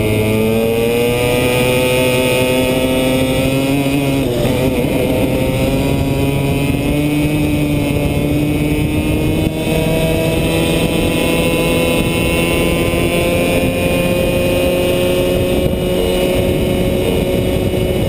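100cc two-stroke go-kart engine under acceleration, its pitch rising out of a corner, dipping briefly about four seconds in, then climbing again more slowly and holding high down the straight.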